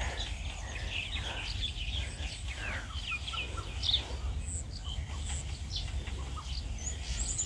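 Birds chirping in short, scattered calls over a low, steady rumble.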